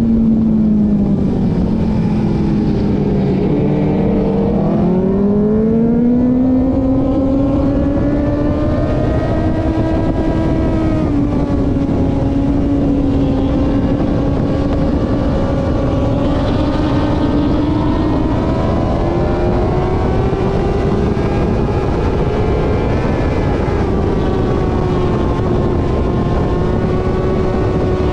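Sport motorcycle engine running hard on a race track as heard from an onboard camera, over a constant rush of noise. Its pitch drops a few seconds in, then climbs and holds a high steady note, rising slowly again later.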